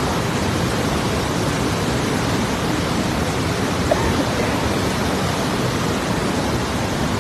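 Parvati River in flash flood: a loud, steady rush of fast, muddy floodwater.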